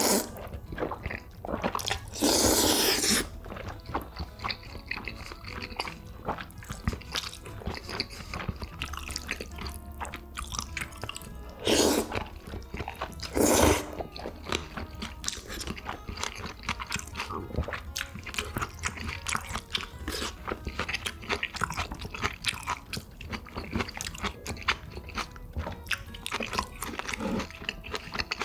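A person chewing food, with many small crunchy clicks and a few louder bursts of eating noise, at about 2, 12 and 13.5 seconds in.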